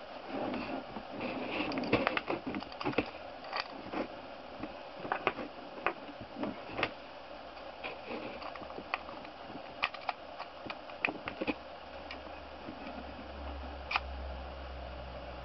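Clicks and knocks of a pink plastic eyelash curler being handled, its battery cap taken off and worked back on, in scattered sharp taps, thickest in the first few seconds. A low hum comes in near the end.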